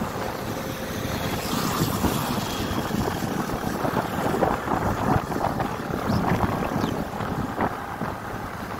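Wind buffeting the microphone over the steady running noise of a scooter being ridden along the road.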